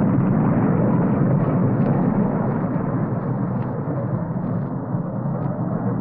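Hanna-Barbera cartoon explosion sound effect: the long rumbling tail of a blast, slowly fading, with a few faint crackles.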